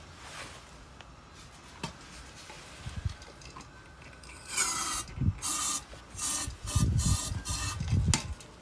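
Irregular rubbing and scraping strokes with a few dull knocks, starting about halfway through.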